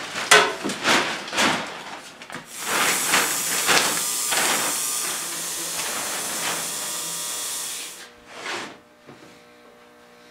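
Clear plastic sheeting rustling and crinkling as it is pulled and tucked down over a chest of drawers. A steady hiss runs under it from about two and a half seconds in and cuts off sharply about eight seconds in. A faint low hum follows near the end.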